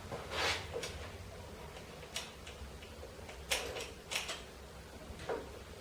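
Scattered light metal clicks and clinks, about six of them, as a washer is fitted onto the front wheel axle.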